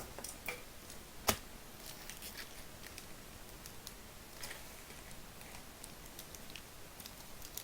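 Light handling of a trading-card box and its packaging: one sharp tap about a second in, then faint scattered ticks and rustles.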